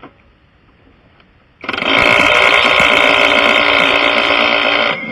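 Impact wrench running on a lug nut for about three seconds. It starts about a second and a half in and cuts off near the end.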